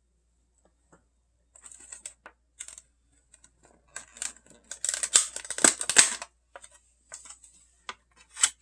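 Clear plastic packaging crinkling and crackling as it is handled and pulled open, in irregular bursts that are thickest and loudest in the middle.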